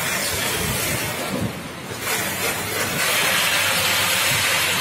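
Steady hissing noise of packaging-line machinery, louder from about three seconds in.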